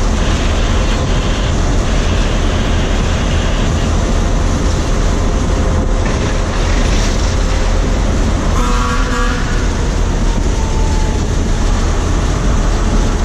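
Steady running noise inside the cab of a moving Alsthom diesel-electric locomotive: the engine and the wheels on the rails. A short high-pitched tone sounds about nine seconds in.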